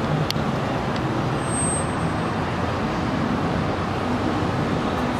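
Ford ambulance's engine running steadily as the truck pulls slowly out of the station bay, with a brief click shortly after the start.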